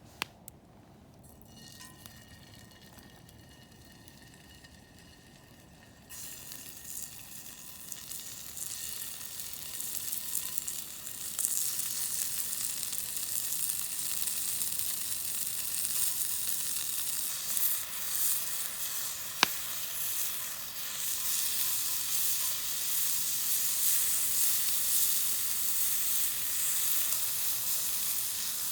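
Sizzling and hissing over a Tokyo Camp fire pit. It starts about six seconds in and builds over the next few seconds to a steady level. There is one sharp click about two-thirds of the way through.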